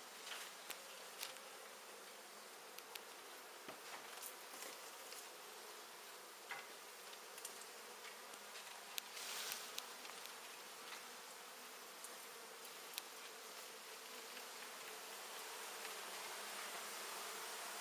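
A large colony of honey bees buzzing with a steady, faint hum, with a few soft clicks scattered through it.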